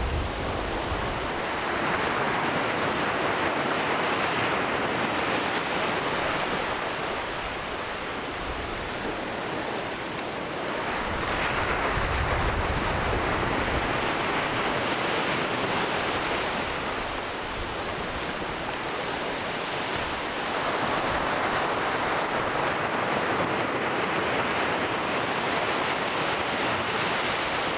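Ocean surf breaking on a beach, the wash swelling and falling back three times, about nine seconds apart.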